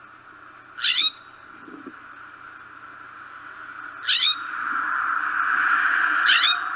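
California scrub jay giving three short, harsh, rasping calls: about a second in, about four seconds in and near the end. Under the calls runs a steady hiss that grows louder in the second half.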